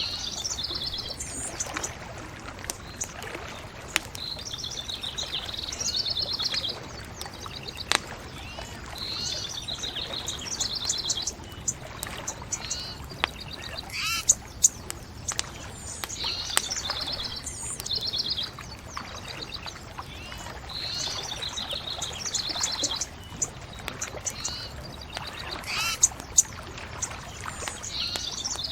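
A songbird sings a short trilled phrase over and over, every few seconds, over the sharp pops and crackle of a burning bonfire and a steady low rushing background.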